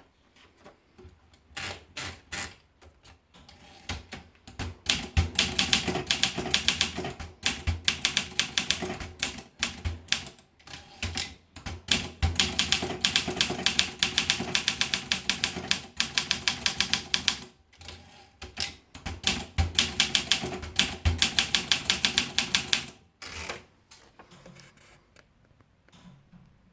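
Olympia SM2 manual portable typewriter being typed on: quick runs of key strikes, several a second, broken by short pauses. The typing thins out and stops near the end.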